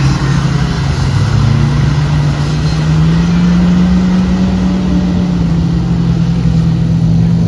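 A pack of autograss racing cars, small hatchbacks, with several engines running hard at once as they lap a dirt track. The engine note rises slightly about three seconds in.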